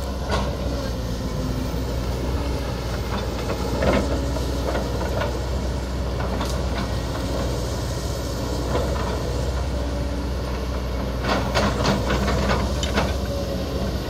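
Kobelco SK200-10 excavator's diesel engine running steadily at moderate throttle while it works, with scattered clinks and knocks from the bucket and machinery, several close together about eleven to thirteen seconds in.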